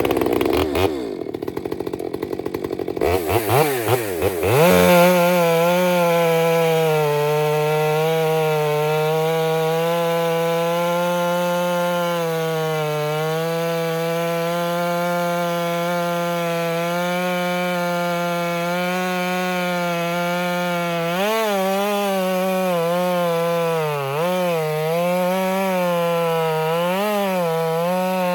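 Ported Stihl MS 462 two-stroke chainsaw with a 28-inch bar: a few seconds at low, uneven speed, then it revs up and holds full throttle at a steady high pitch while cutting a large, wet spruce log. Near the end the pitch dips and recovers several times as the chain is pulled hard into the wood.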